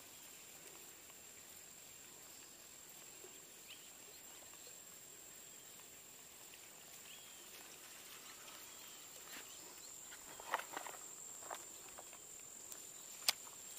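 Faint outdoor ambience with a steady high-pitched insect drone throughout. A few soft clicks and taps come near the end.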